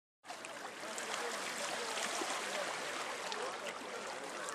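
Steady outdoor rushing noise, like wind or water, that cuts in abruptly about a quarter second in.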